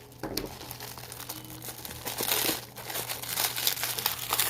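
Packing wrap being crinkled as a stone is unwrapped from an unboxing, in irregular rustling that grows louder about two seconds in.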